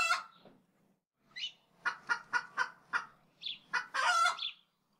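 A chicken clucking in a quick series of short calls, then one longer drawn-out call near the end.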